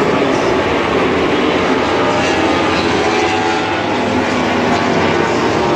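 Several MotoGP racing motorcycle engines running at once, a loud, steady blend of engine tones at different pitches.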